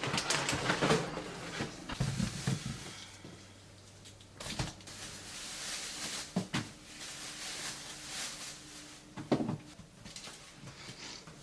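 Household objects being handled: rustling and clatter at first, then a few separate knocks, like cupboards or things being set down.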